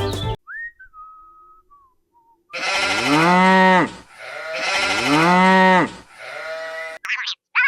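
A thin whistle sliding down in pitch, then a sheep bleating: two long drawn-out bleats that rise and fall in pitch, and a shorter third one. It is a sound effect laid over the footage.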